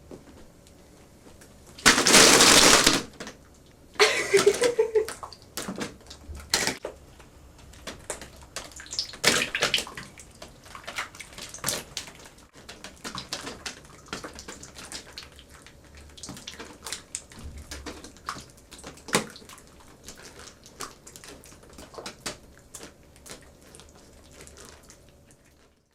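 A bucket of slime is tipped over a person's head: a loud wet gush about two seconds in that lasts about a second. After it comes a brief vocal reaction, then a long stretch of scattered splats and drips as the gunge runs off.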